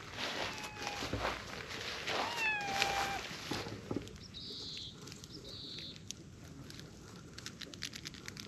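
A cat meowing twice: a short meow about half a second in, then a longer one a couple of seconds later that slides down and holds. Rustling steps through grass follow the meows, and two brief high chirps come after them.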